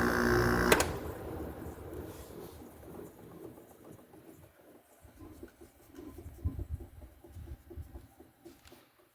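RA51k window air conditioner shutting off: a steady running hum stops with a sharp click just under a second in. The unit then winds down over several seconds, with soft ticks and knocks fading away.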